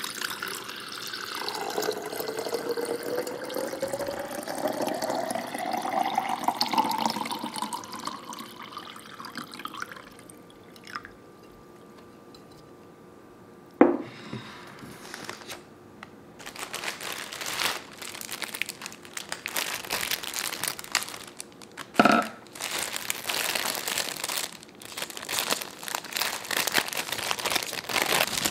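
Water filling a ribbed glass vase, its pitch rising steadily for about ten seconds as it fills. A single knock follows, then the crinkling of plastic flower wrapping, with a second knock partway through.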